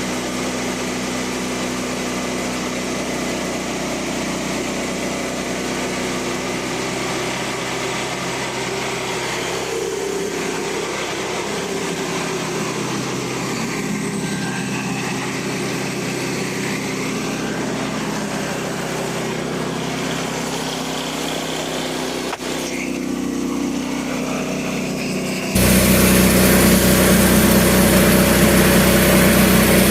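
Portable bandsaw sawmill's small gas engine running steadily. About 25 seconds in it abruptly becomes much louder.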